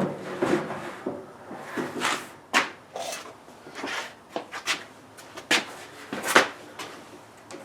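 Irregular knocks, clunks and scrapes of objects being handled and set down on a workbench, about a dozen sharp ones with the loudest near the middle and towards the end.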